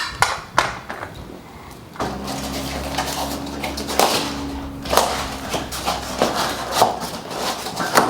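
Clicks and knocks of tools and bike parts being handled on a workbench, joined about two seconds in by a steady low hum.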